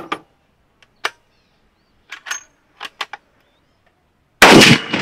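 A few short clicks, then a single scoped rifle shot about four and a half seconds in, very loud and trailing off in a long echo.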